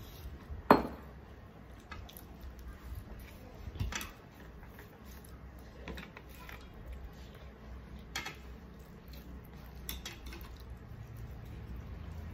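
Eating by hand: fingers mixing rice and curry on plastic plates, with soft smacking and squishing. About a second in, a sharp metal clack as a steel tumbler is set down on the table, the loudest sound, followed by a few fainter clicks later on.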